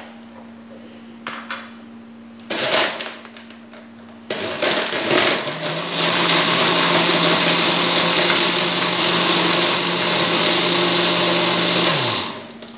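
Countertop electric blender blending ice cubes into chilled milk with cocoa and coffee: a clatter about two and a half seconds in, then the motor starts about four seconds in, runs loud and steady for about six seconds, and is switched off near the end, its pitch falling as it winds down.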